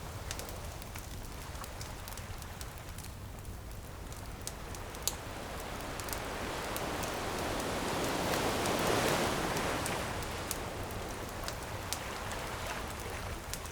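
Ocean wave breaking and washing up the beach, swelling to its loudest about eight or nine seconds in and then easing off, with the sharp crackles and pops of a wood bonfire scattered throughout.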